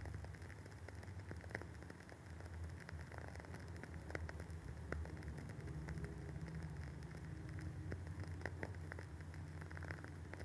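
Wooden wick of a Woodwick candle crackling as it burns, a quick irregular patter of small pops and snaps, over a steady low hum.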